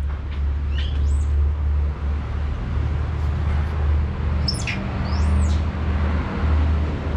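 A baby monkey gives a few short, high-pitched squeaky calls that sweep up and down in pitch, about a second in and again around the middle, over a steady low rumble.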